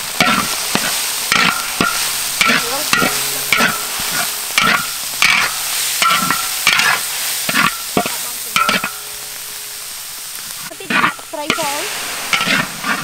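Metal spatula scraping and knocking against a large steel wok in regular strokes, about two a second, while a spice paste fries and sizzles. The strokes ease off briefly about ten seconds in, then resume.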